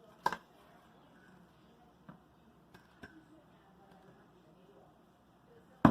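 Slime being mixed in a pot: one sharp knock of a utensil against the pot about a third of a second in, then a few faint clicks over otherwise quiet stirring, and another sudden knock at the very end.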